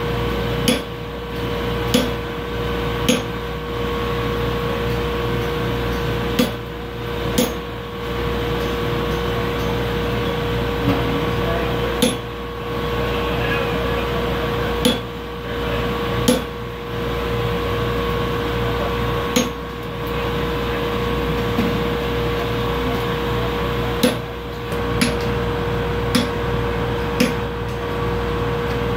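Hammer blows on steel at the anvil: about a dozen sharp strikes, spaced irregularly, over a steady background hum.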